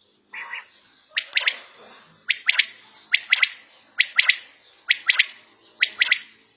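Quail (batair) calling: a quick three-note phrase repeated six times, about one phrase a second, after one shorter, lower note near the start.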